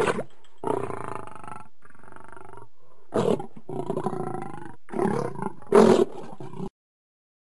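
A big-cat roar sound effect dubbed over the footage, not sound from the turtle: a string of about six growling roars, the loudest near the end, cutting off abruptly.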